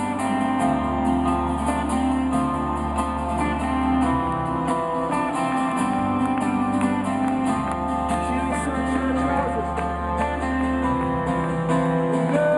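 Live rock band playing an instrumental passage between sung lines: guitar over sustained bass notes that change every few seconds, with a steady beat.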